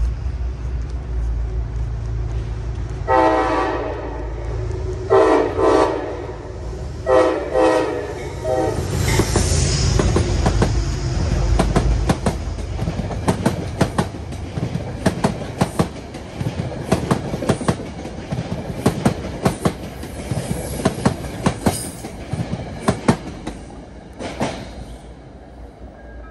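A train passes, sounding its horn in three blasts of about a second each. Its wheels then click rapidly over the rail joints as the cars go by, the clicking fading toward the end.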